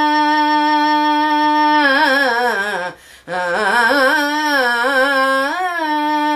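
A woman singing a bhajan alone, with no instrument heard: a long held note on one vowel, then a winding, ornamented run of notes. She takes a short breath about three seconds in, then sings another ornamented phrase that settles on a held note near the end.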